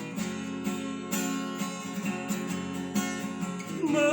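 Acoustic guitar strumming steady chords as an instrumental passage between sung lines. A male singing voice comes in near the end.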